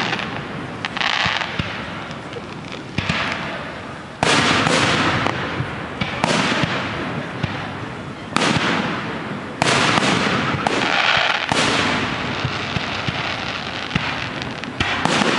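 Fireworks display: about six loud shell bursts a second or two apart, each sudden bang dying away over the next second or so before the next one goes off.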